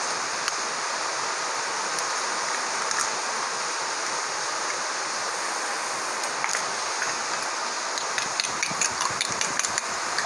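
Steady hiss under a few light knocks as eggs are cracked into a glass bowl; from about eight seconds in, quick irregular clinking of a spoon beating the eggs against the glass bowl.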